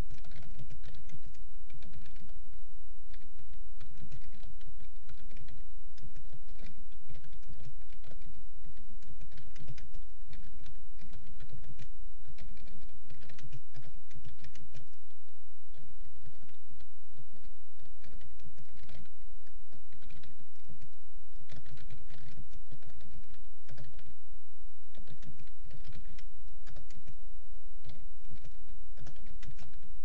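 Fast typing on a computer keyboard: a dense, irregular run of key clicks with a few short pauses, over a steady low hum.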